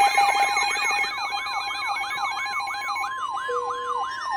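Layered electronic alert tones. A siren-like tone falls in pitch over and over, about three times a second, above a steady single tone. Extra beeping tones drop out about three seconds in.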